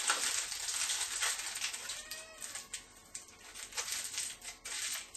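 Aluminium foil crinkling and crackling as it is wrapped and squeezed around a sculpture by hand, in irregular crinkles that are louder in the first couple of seconds.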